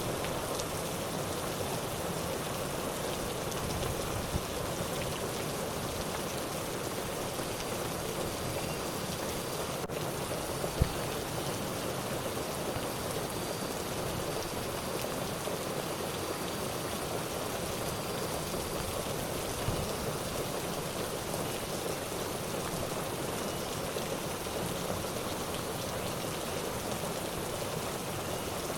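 Steady hiss of water, with a single sharp tap about eleven seconds in.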